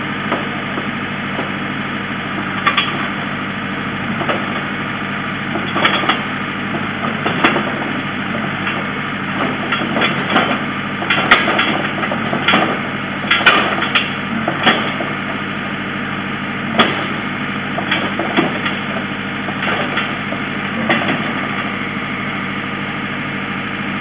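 Backhoe engine running steadily, with irregular clanks and knocks as the digging arm and bucket are worked.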